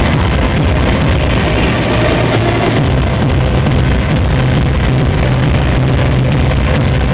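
Loud electronic dance music from a DJ set played over a nightclub sound system, with heavy bass and a held low bass note from about halfway through.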